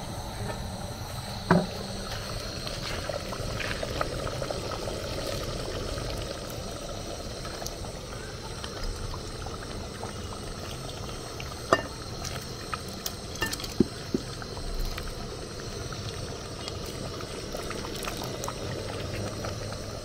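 Liquid bubbling steadily in a cooking pot of soup, with a few sharp clicks, the loudest about one and a half seconds in and two close together a little after the middle.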